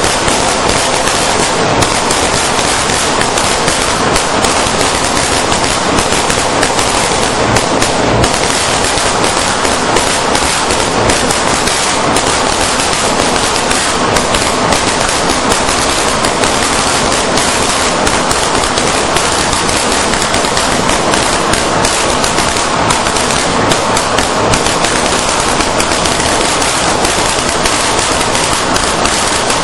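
A long string of firecrackers exploding on the ground, a dense, continuous rapid-fire crackle of bangs with no break.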